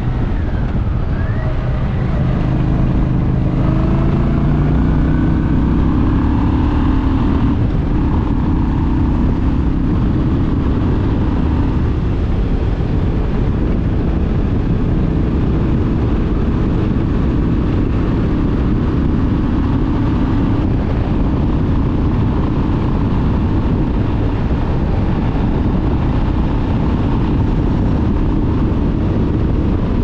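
Honda Shadow 750 ACE's V-twin engine riding along a road. The engine note climbs in pitch for several seconds as the bike accelerates, then holds a steady cruise.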